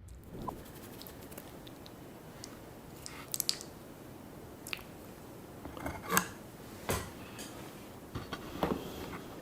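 Utensils and dishes clicking and tapping a handful of times, with soft squishy handling of food, over a steady background hiss.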